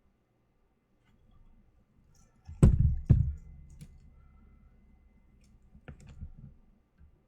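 Two sharp knocks about half a second apart, then two lighter clicks near the end: tools and the amplifier board being handled at the workbench while soldering transistors in.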